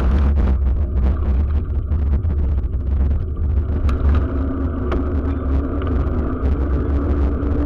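Wind and road rumble on a camera riding along on a bicycle, with a run of jolts over cobblestones that gives way to a smoother ride about four seconds in.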